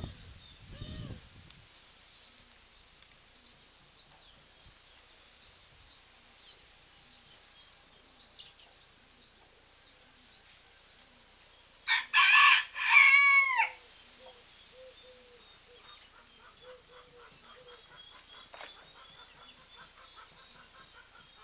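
A hen crowing like a rooster: one short crow in two parts, about twelve seconds in, by far the loudest sound. Soft short clucks and faint chirping come before and after it.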